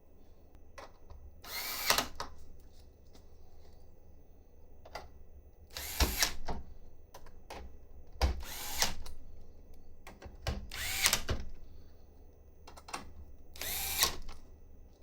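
Cordless power driver running in five short bursts a few seconds apart, each spinning up and winding down, as screws are driven during 3D printer assembly.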